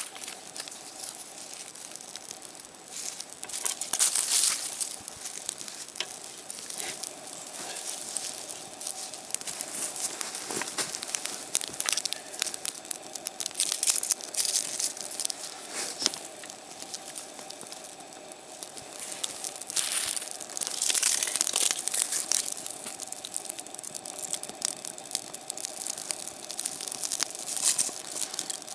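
Small tinder fire of inner bark and dry leaves crackling while dry birch bark and kindling are laid onto it, the bark crinkling and rustling in bursts that come and go.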